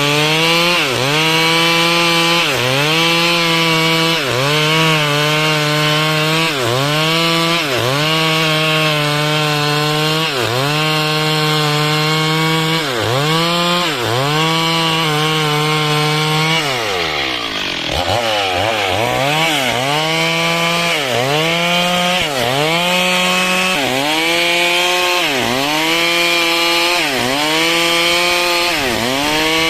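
Two-stroke chainsaw cutting dry wood, its engine note dipping and recovering about once a second as the chain bites. About halfway through, the pitch falls steeply and climbs back up.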